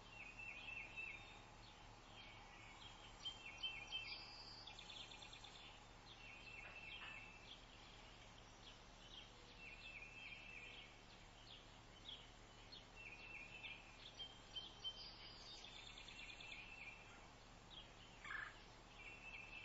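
Faint birdsong: short phrases of rapid notes, repeated every few seconds.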